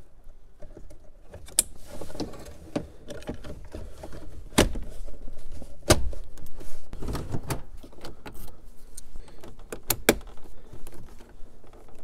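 Plastic dash trim bezel being handled and pressed into the dash: plastic rubbing and scraping, with several sharp snaps as its clips seat.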